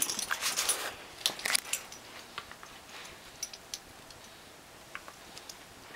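Two small dogs scuffling over a rope toy, their metal collar tags jingling and clinking, busiest in the first second and a half, then scattered light clicks as they tug.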